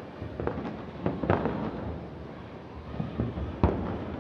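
Distant aerial fireworks shells bursting: a scattered series of sharp bangs, about six in all, the loudest about a second in and again near the end.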